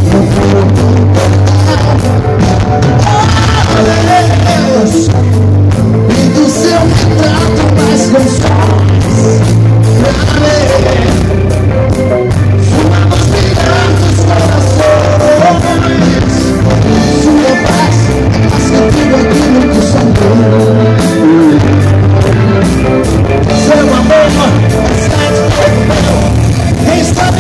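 A live gospel-rock band playing loudly through a concert PA: electric guitar, drums and a heavy, pulsing bass line.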